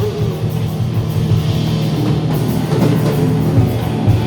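Rock band playing a surf-rock song: a steady bass line under drums and electric guitar, with cymbal strokes from about two seconds in.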